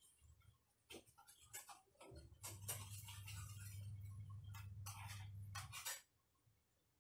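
Faint clicks and taps of a utensil against a pan on the stove, with a steady low electrical hum that starts about two seconds in and stops about a second before the end.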